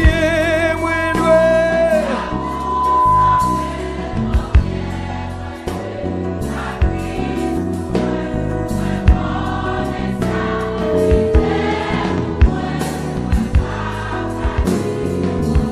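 Gospel song in Haitian Creole: voices singing over a band with bass and drum hits, with a sung note held with vibrato near the start.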